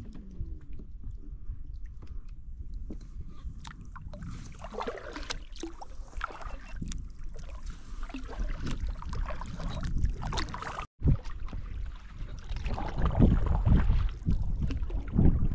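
Kayak paddle strokes in the water, irregular and getting louder toward the end, over a low wind rumble on the microphone. The sound cuts out completely for a moment about two-thirds of the way through.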